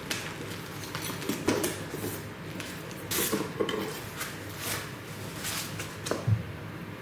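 Parts being handled and unpacked: scattered clinks, rattles and rustles, with a dull thump about six seconds in.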